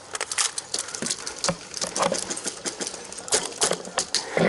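Airsoft gunfire: sharp, irregular cracks and clicks of shots and BB hits, bunched in short runs.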